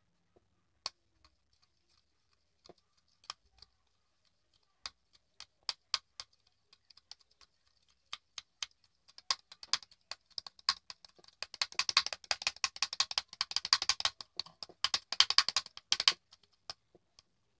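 Close-up eating noises from a jelly stick snack squeezed out of its plastic tube: scattered sharp, wet clicks that come faster and faster, then a dense crackle for several seconds that stops shortly before the end.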